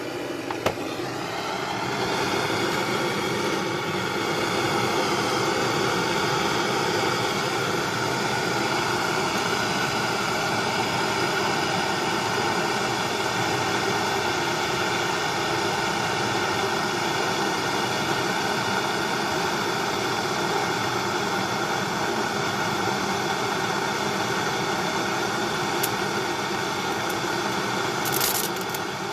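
Gas blowtorch flame hissing steadily as it heats a scrap of magnesium alloy, the hiss building over the first couple of seconds and then holding even.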